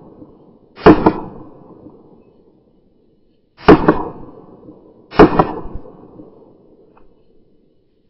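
Three handgun shots, the first about a second in, the next nearly three seconds later and the last a second and a half after that, each a sharp crack that trails off quickly.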